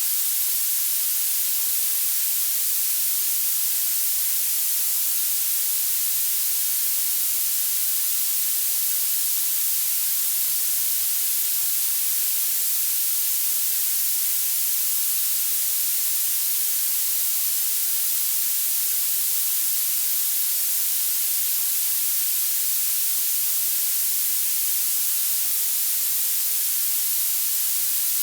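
Violet (purple) noise: a steady, unchanging synthetic hiss that gets louder the higher the pitch. It is sharpest at the very top, with almost no low end.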